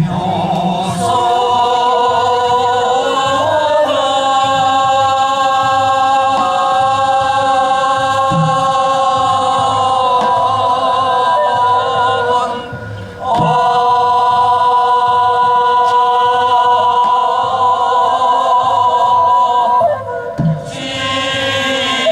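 Sijochang, Korean classical sung poetry, sung in very long held notes that waver only slightly, with brief pauses for breath about 13 and 20 seconds in.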